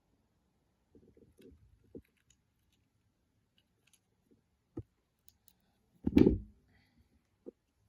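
Small 3D-printed plastic model parts being handled and fitted together: scattered light clicks and taps, with one louder knock about six seconds in.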